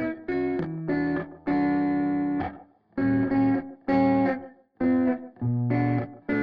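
Background music without singing: a run of short chord strokes, each held briefly and then cut off, with brief gaps between them.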